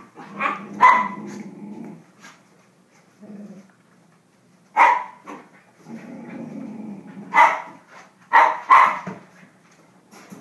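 Corgi puppy barking and growling in play: about six sharp barks, a few close together, with stretches of low, steady growling between them.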